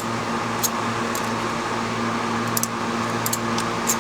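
Steady hum of an RV's running generator, with a few light clicks scattered through it.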